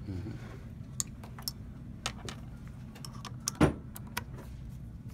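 Small metallic clicks and taps of a screwdriver turning loose the corner screws of a RED Epic-X camera's lens mount, with one sharper click about three and a half seconds in, over a steady low hum.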